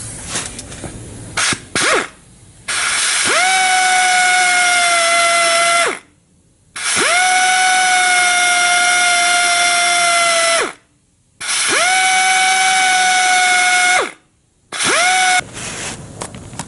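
Electric drill boring into the steel frame of a 1953 Chevrolet 3100 truck. It runs in three long bursts of three to four seconds each and one short burst near the end, each starting with a rising whine that settles to a steady pitch.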